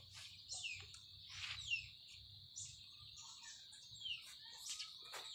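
Faint bird chirps: short calls sliding down in pitch, scattered irregularly, over a steady high whine.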